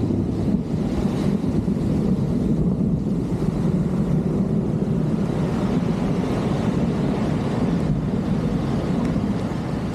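Steady, deep rush of rain and floodwater around a clogged street drain.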